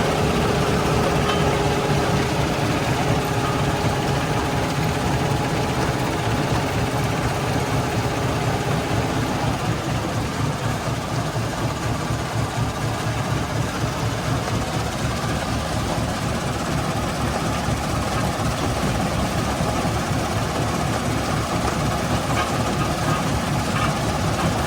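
Heavy stone-crushing plant machinery running steadily: a dense mechanical rumble with a steady hum. One hum fades out about nine seconds in, and a higher one comes in soon after.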